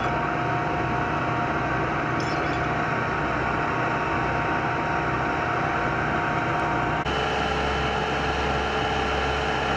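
A steady mechanical drone with constant humming tones, like an engine running at idle. Its pitch pattern shifts abruptly about seven seconds in.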